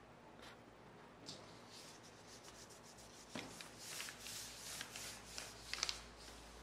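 A hand rubbing across a sheet of paper with a dry, scratchy sound and a few sharp clicks, starting about halfway through and loudest just before it stops.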